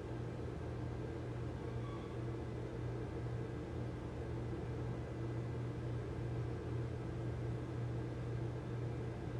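Steady low hum with an even background hiss and no distinct events: room tone.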